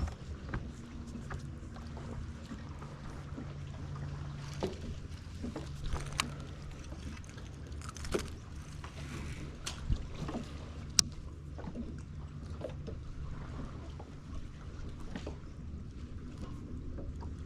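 Steady low hum of a fishing boat's motor, with scattered light clicks and knocks on the boat.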